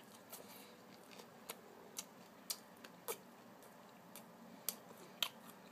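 A person chewing a bite of pizza with the mouth closed: faint wet clicks and smacks, about one every half second.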